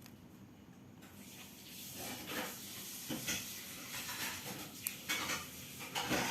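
Handheld two-way radio hissing static, starting about a second in and rising, with a few short clicks near the end.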